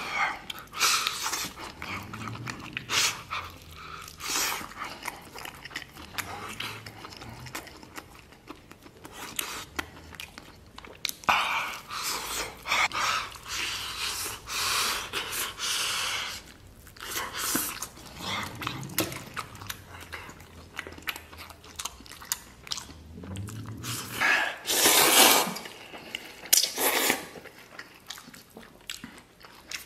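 Eating sounds of a person gnawing braised pork leg bone: irregular wet chewing, smacking and sucking as the soft meat and tendon are pulled off the bone, with a few louder sucking slurps.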